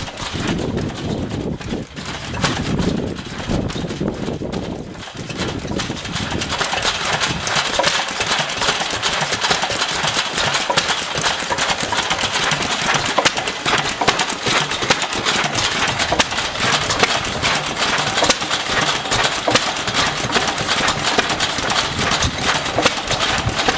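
Vintage Lister stationary engines running together, a busy rhythmic clatter of overlapping firing beats that turns sharper and busier about six seconds in.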